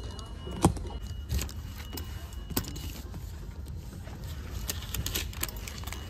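A metal belt buckle clinking and clicking as a leather belt is handled, with a paper tag rustling, over a steady low hum. The sharpest click comes about half a second in, with lighter clicks later.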